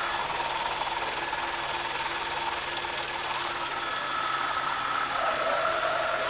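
Helicopter engine and rotor noise heard from inside the cabin in flight: a steady drone with a high, steady whine.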